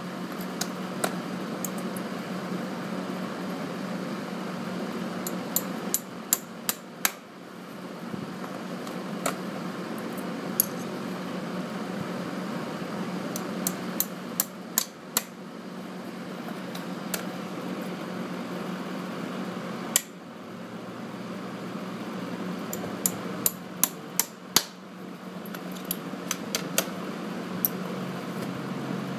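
Farrier's hammer striking metal while shoeing a draft horse: sharp taps in short groups of two to five, a few seconds apart. A steady low hum runs underneath.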